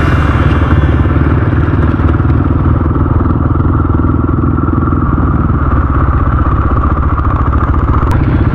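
Dirt bike engine running steadily under way, with some clatter over it.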